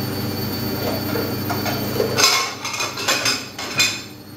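Dishes and cutlery clattering at a kitchen sink: a steady hum for the first half, then a quick series of sharp clinks and knocks.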